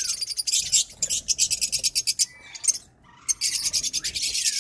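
Lovebirds chattering in a fast run of high chirps, about a dozen a second, broken by a brief pause past the middle. Near the end one bird gives a whistled call that rises and then falls.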